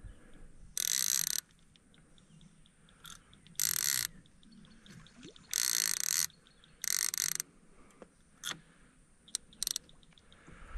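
Baitcasting fishing reel ratcheting in four short buzzes of about half a second each, with a few single clicks between them.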